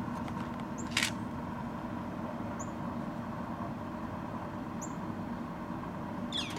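Pellet grill's fan running with a steady hum, with a few short high chirps and a brief hiss about a second in.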